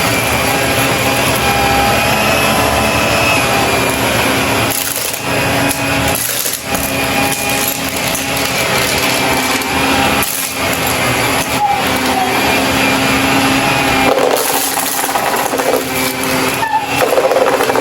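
Shark vacuum cleaner running with a steady motor whine, crunching and crackling as it sucks up debris, the sound dipping briefly now and then.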